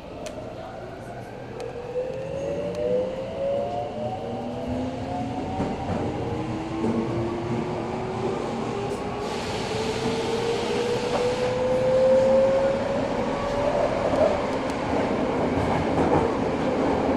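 Eidan 03 series subway train heard from inside the car, accelerating. The VVVF inverter drive's motor whine climbs steadily in several pitched tones as the train gathers speed over rail rumble. A short hiss comes in about ten seconds in.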